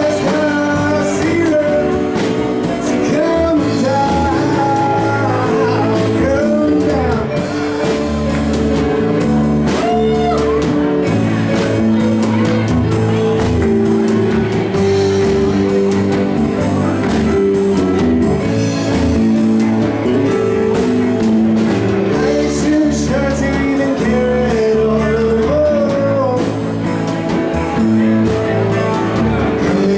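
Live band playing a cover of a pop-rock song: a male singer's lead vocal over keyboards, electric guitar, bass guitar and drums.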